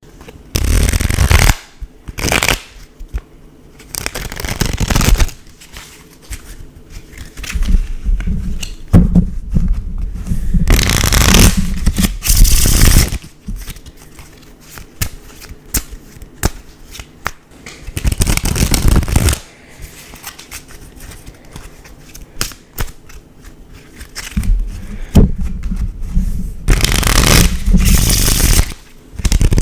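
Playing cards being shuffled by hand, in about six separate bursts of rapid flicking that each last from half a second to several seconds, with quieter gaps between.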